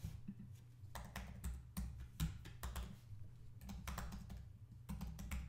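Typing on a computer keyboard: a run of irregular keystroke clicks as a web address is entered, with brief pauses between bursts of keys.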